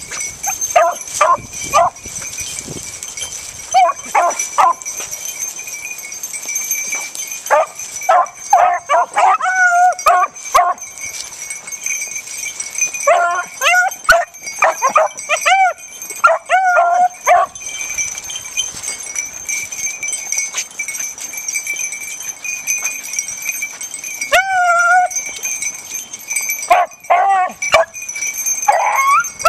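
Pack of beagles yipping and baying in short bouts with pauses between them, while nosing the ground for rabbit scent.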